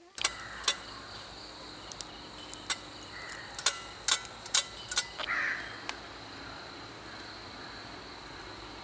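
Crickets chirring steadily. About ten sharp taps or knocks come in the first six seconds, several of them close together around the middle.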